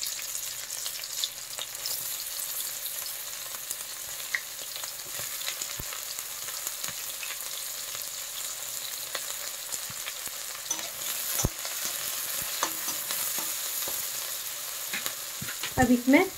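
Sliced onions frying in hot mustard oil in a kadhai: a steady sizzling hiss, with a few sharp clicks scattered through it.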